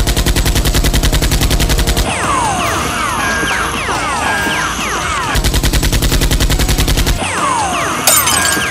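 Rapid machine-gun fire in two bursts of about two seconds each, with many short falling whistles between them, like bullets whizzing past.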